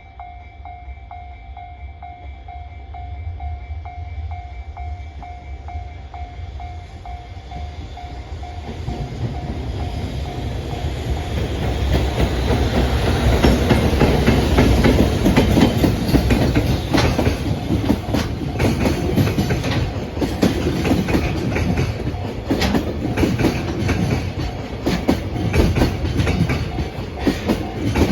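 Japanese level-crossing alarm bell ringing in a steady pulsing beat, then a freight train passes: a JR Freight EF210 electric locomotive hauling an unpowered DD200 diesel locomotive and container flatcars. The train noise builds from about nine seconds in and is loudest about halfway, then carries on as fast clickety-clack of wagon wheels over the rail joints.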